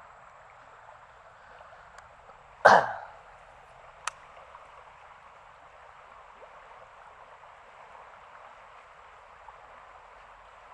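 Steady sound of flowing flood water, with one loud splash about a quarter of the way in and a single sharp click about a second and a half later.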